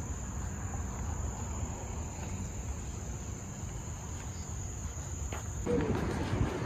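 Insects singing a steady, high, even drone over a low outdoor background. A little before the end it cuts off suddenly and a louder, lower background takes its place.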